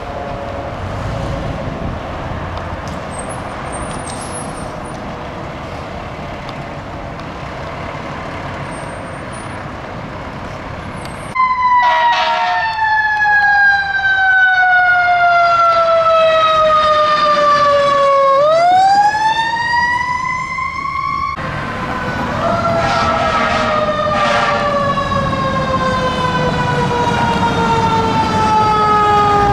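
Fire truck sirens wailing in long, slow sweeps over traffic noise. The siren is faint at first. From about a third of the way in it is loud: the pitch sinks for several seconds, then climbs back up. Near the end another siren falls slowly in pitch.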